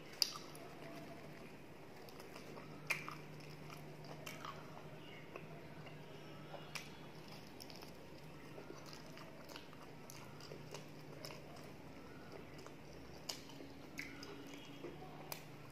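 Close-miked eating sounds: biting and chewing of luchi (fried puffed bread), with a few sharp crunch-like clicks here and there. A steady low hum lies underneath.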